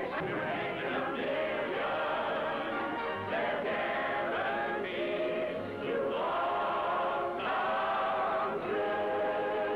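Choir singing with musical accompaniment, in held notes that change every second or so. It has the dull, narrow sound of a 1940s film soundtrack, with no treble.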